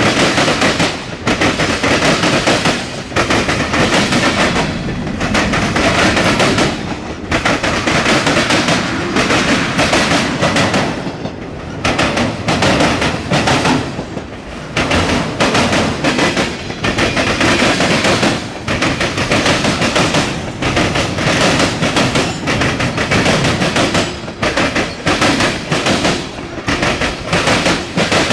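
Long freight train's cars rolling past close by: a loud, steady rumble and clatter of steel wheels on rail, full of sharp clacks over the rail joints, dipping briefly every second or two.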